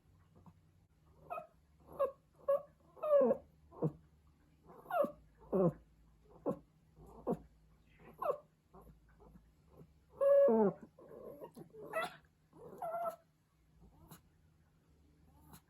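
Pomeranian puppy crying in a string of short whines, many falling in pitch, with a longer, louder cry about ten seconds in: separation distress at missing its mother.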